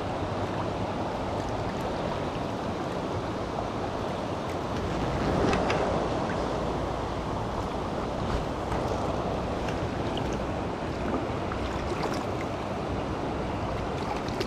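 Steady rush of a fast-flowing river current, swelling louder for a moment about five to six seconds in.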